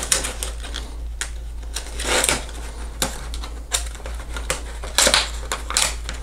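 Rigid plastic packaging tray and its cover crinkling and clicking as hands work at its stapled edges. Scattered clicks, with louder crinkles about two and five seconds in.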